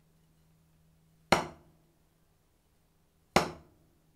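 Drumstick striking a rubber practice pad twice, slow single strokes about two seconds apart, each a sharp tap that dies away quickly. They are single strokes played by closing the fingers on the stick, the basis for the double stroke roll.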